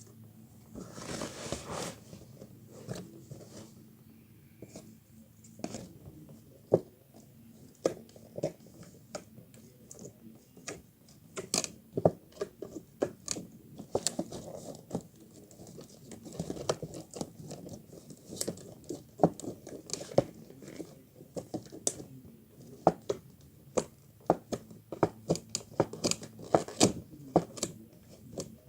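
Clicky slime being squeezed and worked by hand, giving a run of sharp clicks and small pops with soft squishing between them, the clicks coming thicker in the second half.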